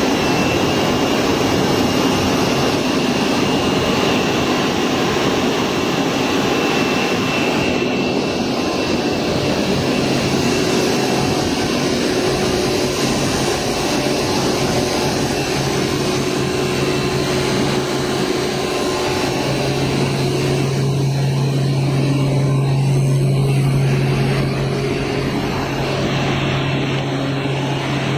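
Steady loud machinery noise of a PVC cling film extrusion line running. A thin high whine sounds for the first several seconds, and a low hum swells about two-thirds of the way through.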